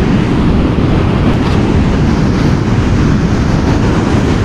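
Steady wind buffeting the microphone over the rumble of rough surf breaking on the beach.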